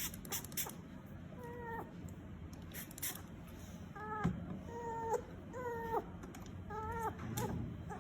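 A dog whimpering in about five short, high cries, each falling in pitch, while a microchip is being injected.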